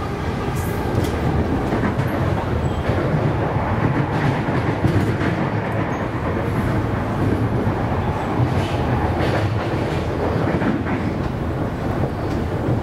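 Inside a Siemens Nexas electric multiple unit running at speed: a steady rumble of steel wheels on the rails, with occasional clacks over rail joints.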